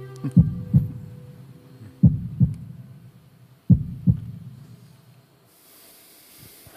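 Heartbeat sound effect: three low double thumps, lub-dub, spaced about 1.7 s apart. The last held note of the song's backing music cuts off just as the first beat comes in.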